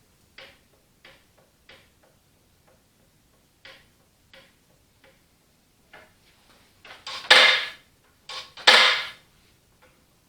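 Light metal clicks and taps from the clutch pedal and shaft of an Allis Chalmers WD45 tractor being worked loose, followed near the end by two louder, longer metal scraping clanks as the pedal comes off its shaft.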